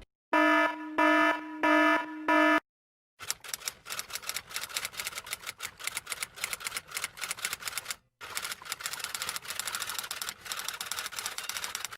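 Four electronic alarm beeps, then rapid typing clatter of many keystrokes, with a brief break about two-thirds of the way through.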